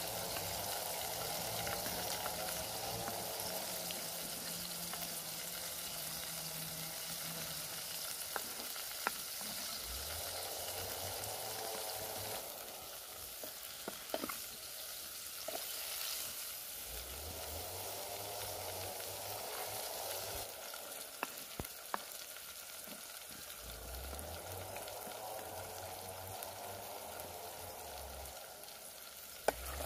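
Baby octopus sizzling steadily on a hot flat stone over a wood fire while a wooden spatula stirs and turns them, with a few sharp clicks scattered through.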